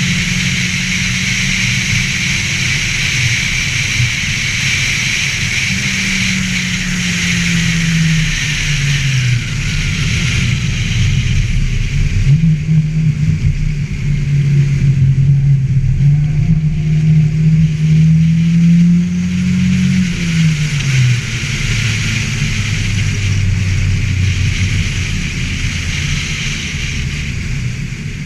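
Ford Festiva car engine running hard during a trackcross run. Its pitch drops about a third of the way in, climbs and holds again, then falls away near the end as the car slows. A steady hiss runs over it throughout.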